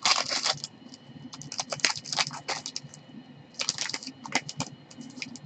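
Crinkling and rustling of a foil hockey-card pack wrapper handled by gloved hands, in several short spells of crackling.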